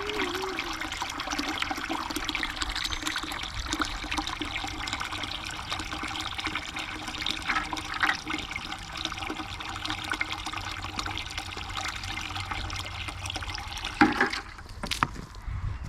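Steady rush of running or splashing water that stops suddenly about 14 seconds in, with a sharp knock just as it ends.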